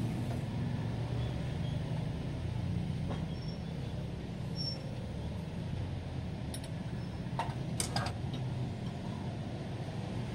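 An engine running steadily at idle, with a few sharp clicks about three-quarters of the way through.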